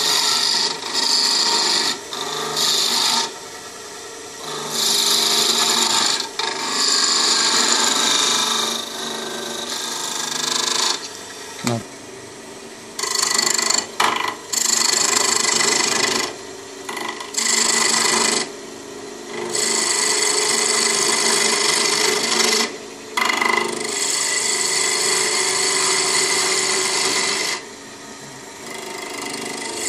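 Wood lathe spinning a pale wooden spindle while a hand-held turning tool cuts it, a hissing scrape of tool on wood in repeated passes of one to three seconds, stopping and starting as the tool is lifted and set back to the work.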